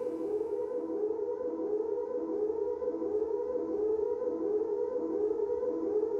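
Siren sounding in a repeating rising sweep, about one and a half sweeps a second, over a steady held tone.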